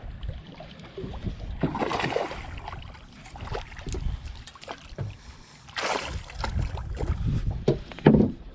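A hooked largemouth bass splashing at the water's surface beside the boat as it is played and landed, in several bursts, with handling noises and wind on the microphone.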